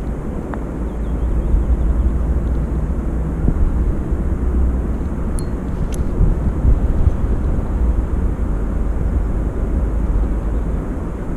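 Wind buffeting the microphone: a loud, steady low rumble that swells and dips.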